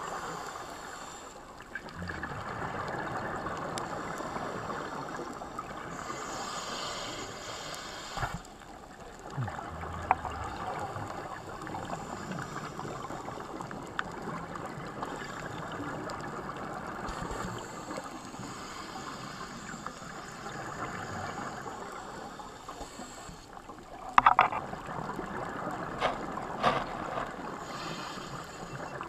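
Underwater ambience picked up through an action camera's waterproof housing: a steady muffled hiss with scattered sharp clicks, loudest in a short cluster of clicks near the end.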